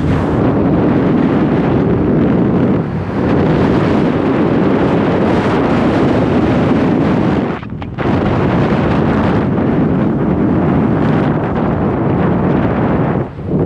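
Strong wind buffeting the microphone of a rider moving on an electric scooter, a loud steady rush that dips briefly about eight seconds in and again near the end.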